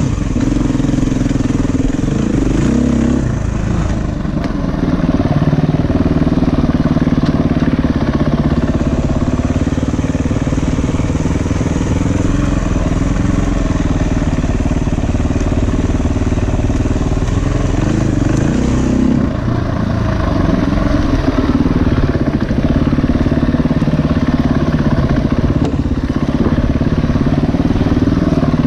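A 350 cc dirt bike's engine running on slow single track, its throttle opening and closing so that the note rises and falls again and again, with brief lulls about four seconds in and about two-thirds of the way through. Heard up close from a camera mounted on the bike.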